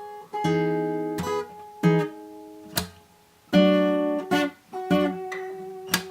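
Acoustic guitar strumming chords, each struck sharply and left to ring and fade before the next, in an instrumental break of a folk song.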